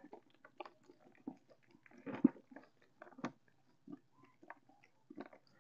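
Faint, scattered clicks and light taps as a netting fish trap is handled over a plastic bucket and small barbs stuck in its mesh are worked loose into the bucket.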